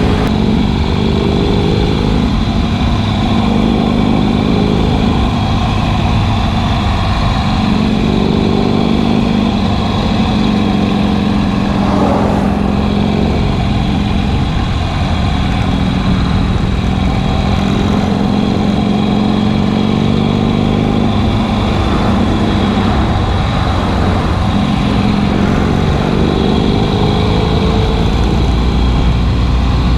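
Harley-Davidson Sportster V-twin engine running steadily under way, its pitch rising several times as it accelerates.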